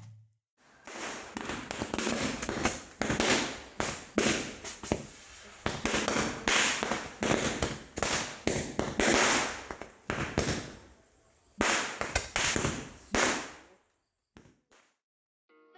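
A chain firework (malapadakam), a string of small firecrackers, going off in rapid strings of sharp bangs for about thirteen seconds. There is a brief lull before a last run of bangs, then a few final isolated pops.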